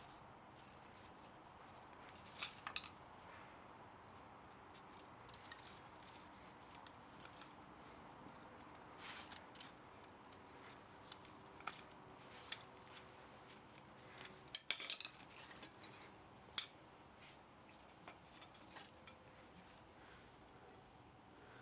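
Hand tools snipping and clinking on the metal parts of a scrapped electric pump motor: sharp snips and clicks come at irregular intervals, with a close cluster of louder ones about fifteen seconds in.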